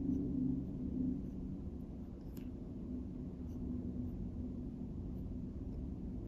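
A red pen writing on a paper worksheet: faint strokes of the tip on paper over a low, steady room hum, with a single light tick about two and a half seconds in.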